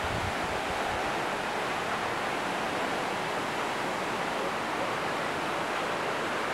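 Steady rushing noise of Multnomah Falls, a tall waterfall, plunging into its pool, with a few low thumps in the first second.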